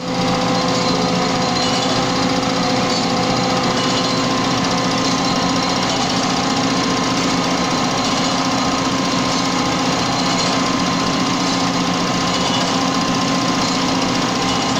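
Impact pulverizer and its cyclone blower grinding sawdust: a loud, steady industrial machine noise with several held tones over a dense rushing hiss.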